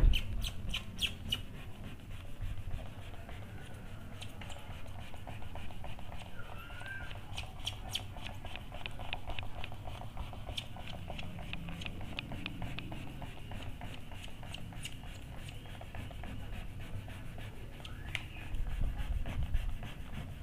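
Cloth-wrapped pad rubbing and scraping over plastic polarizer film as it is pressed onto an LCD panel, with runs of quick light ticks and crackles now and then.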